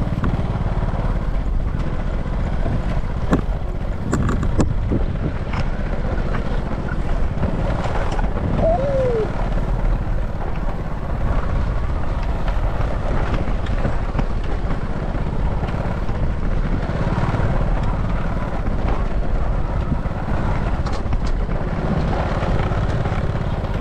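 Small motorbike engine running steadily while riding over a bumpy grass track, with wind buffeting the microphone.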